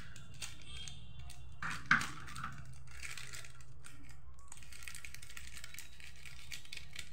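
Plastic sachet crinkling in the hands and scissors snipping it open, with scattered small clicks and one sharp click about two seconds in, over a steady low hum.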